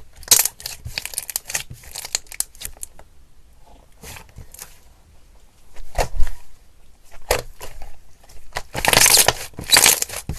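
Slime being squeezed and stretched by hand, giving irregular crinkling, crackling pops. There is a quieter stretch partway through, and the crackling is densest and loudest near the end.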